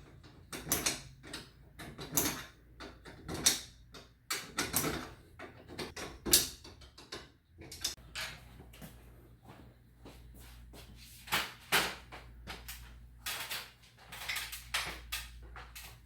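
Irregular metallic clicks and clinks of hand tools and chain as a garage door opener's chain is refitted on its sprocket and tightened down. A low steady hum comes in about halfway through.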